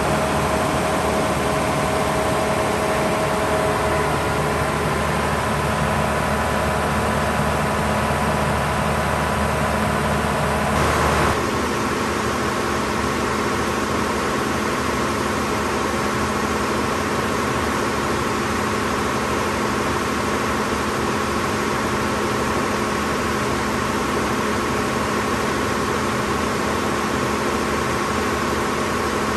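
Gardner 6LXB six-cylinder diesel engine of a 100 kVA generator set running steadily at an even speed. It is heard close to the exhaust silencer at first, then from further back and a little quieter after about eleven seconds.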